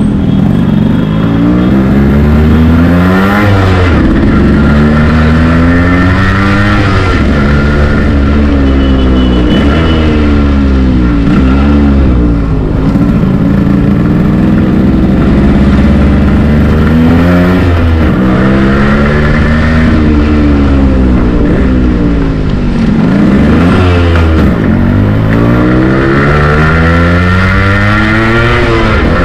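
Yamaha RX100's 98 cc single-cylinder two-stroke engine under way, revving up and easing off again and again, its pitch climbing and falling every two to three seconds.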